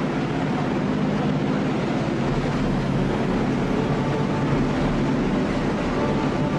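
A boat's engine running steadily under way, a low hum, under the rushing of the churning wake behind the stern.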